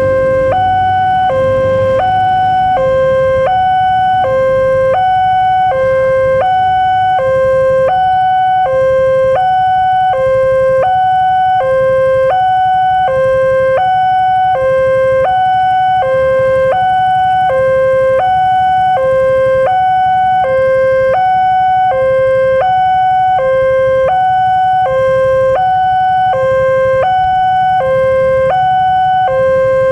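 Electronic two-tone warning alarm of an Indonesian level crossing, sounding from the horn speaker on the signal pole while the red lights flash and the barrier is down. It alternates evenly between a high and a low tone, each lasting a little over half a second, warning that a train is approaching.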